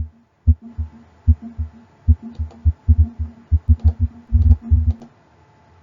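Recorded heart sounds demonstrating a third heart sound (S3): a run of low-pitched lub-dub thuds with an added low early-diastolic sound. The beats come closer together after about three seconds and stop about five seconds in.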